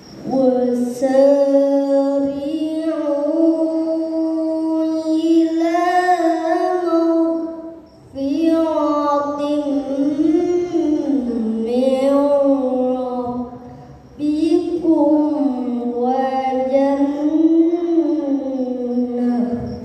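A young boy chanting Qur'an recitation (tilawah) into a microphone in long, melodic, ornamented phrases, the pitch wavering up and down within each held note. He pauses briefly for breath about 8 and 14 seconds in.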